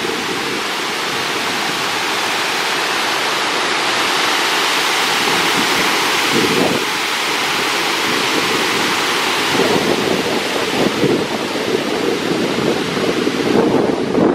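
Lake water pouring over a curved concrete spillway weir and churning into the basin below: a steady, even rushing of falling water.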